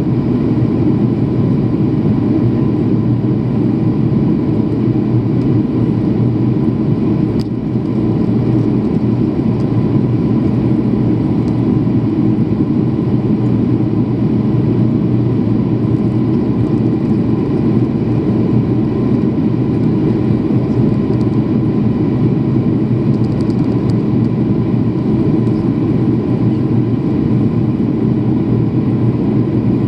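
Jet airliner cabin noise in flight: a loud, steady roar of engines and airflow heard from a window seat, with a faint steady tone above it. The level dips briefly about seven seconds in.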